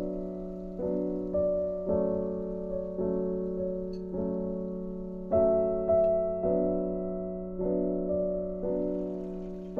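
Background music on piano: a slow run of notes or chords, a new one struck about once a second and left to fade.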